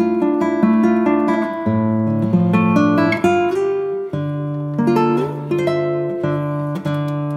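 Background music on acoustic guitar: a continuous run of plucked notes and chords.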